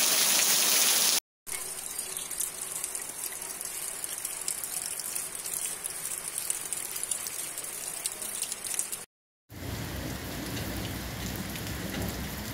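Steady rain falling, in three stretches split by two short silent cuts. First comes about a second of heavy rain hitting waterlogged grass and puddles. Then several seconds of lighter rain with scattered drop ticks, and finally rain with more low noise underneath.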